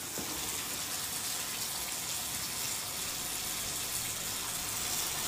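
Water running steadily in a small toilet room, a continuous even rush like a tap left flowing, getting slightly louder near the end.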